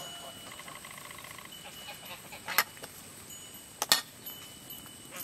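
Domestic geese honking: two short, loud honks about a second and a half apart, over a faint steady high chirping.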